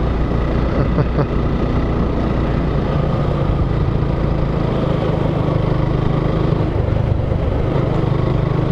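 Motorcycle engine running at a steady speed under way.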